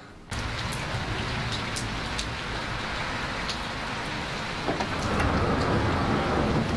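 Steady rain hiss with scattered drop ticks, starting suddenly just after the beginning and growing a little heavier near the end.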